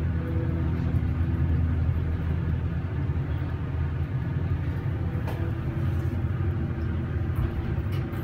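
MEI hydraulic elevator cab travelling up, heard from inside the cab: a steady low hum and rumble of the running hydraulic pump motor and moving cab. A faint higher whine fades out about two seconds in.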